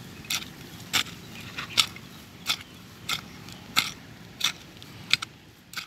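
A small flat hand tool scraping and chopping into soil in a steady digging rhythm, about nine strokes, roughly one every two-thirds of a second.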